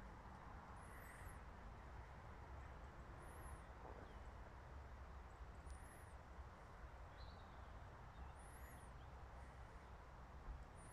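Quiet open-air ambience: a faint low rumble, with a small bird giving a thin, very high chirp about every two and a half seconds and one lower call about two thirds of the way in.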